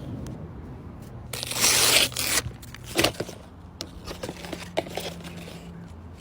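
A paper blind bag being torn open by hand. One loud tear runs for about a second, starting about a second and a half in. Paper crinkling and scattered sharp crackles follow.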